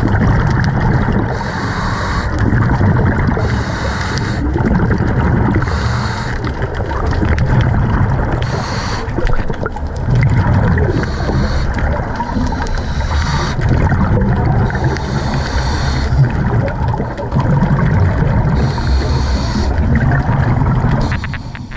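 Scuba diver breathing through a regulator underwater: short hisses recur every two seconds or so, with the low rumble of exhaled bubbles between them, muffled through the camera's underwater housing.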